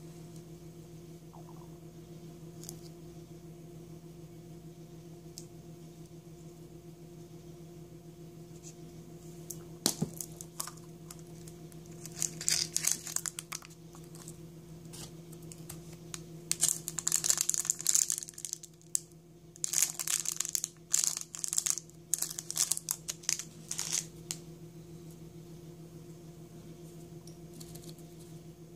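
Clear plastic wrapper crinkling and tearing in bursts as a small toy is unwrapped, after a single sharp click of a plastic surprise egg snapping open. A steady low hum runs underneath.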